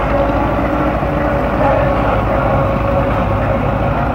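Belarus MTZ tractor's diesel engine running steadily with an even low throb as the tractor works through wet mud with its front and rear blades.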